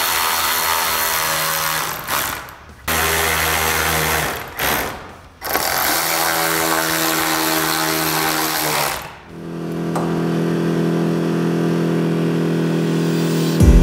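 Cordless power drill driving screws, running in several bursts of two to four seconds that stop and start. It is putting the original headlight screws back in to hold the new headlight mount.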